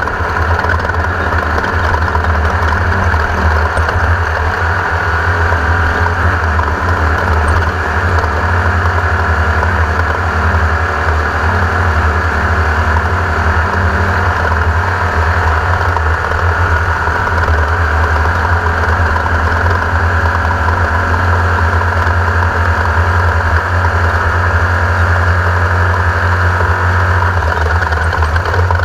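Air-cooled 1600 cc Volkswagen-type engine of a Class 1600 off-road race buggy running steadily and loudly, with no clear rise or fall in revs.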